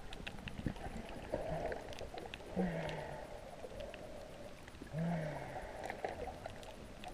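Muffled underwater sound picked up by a camera below the surface: scattered faint clicks and, about every two and a half seconds, a short low swell with a slightly falling hum.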